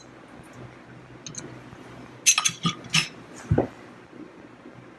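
Loose metal gearcase parts clinking and clattering as they are handled, a cluster of sharp clinks a little past two seconds in, then a duller knock about a second later.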